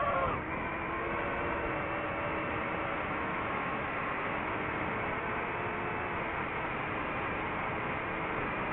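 DJI FPV drone's motors and propellers running, a steady whine of several faint tones over a rushing noise; a stronger wavering whine drops away about half a second in, then the pitch holds steady.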